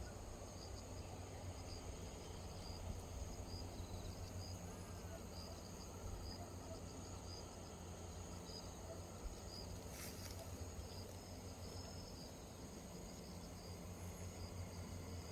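Crickets and other insects chirping: a steady high trill with short chirps repeating every half second or so, over a low rumble. A single click comes about ten seconds in.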